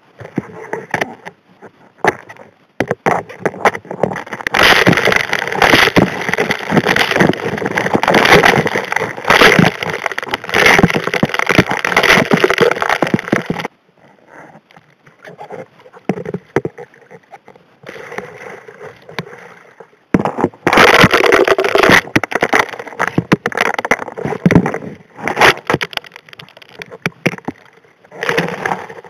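Gravel and small rocks being sucked into the steel nozzle of an M625 hand suction dredge, heard underwater: a dense rattling clatter of stones knocking against the nozzle over a rushing flow. Two long busy stretches, the first cut off abruptly, with sparser knocking between.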